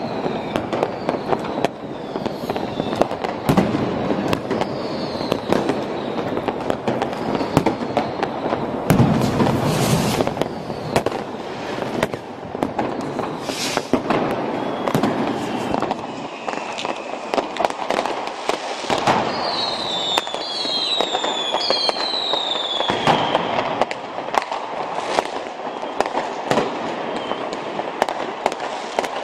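Dense fireworks and firecrackers going off on all sides: an unbroken mass of overlapping bangs and crackles, loudest about nine seconds in. Several whistles falling in pitch come about two-thirds of the way through.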